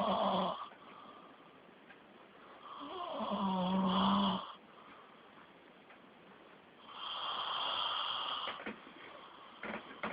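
A sleeping person snoring heavily, one long snore about every four seconds; the snore about three seconds in is the loudest, with a low rattling buzz, and the one near seven seconds is breathier. A few soft clicks come near the end.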